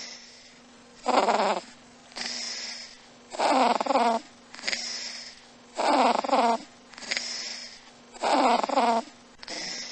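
A domestic cat snoring in its sleep: four louder snores about two and a half seconds apart, each followed by a softer, higher, hissing breath.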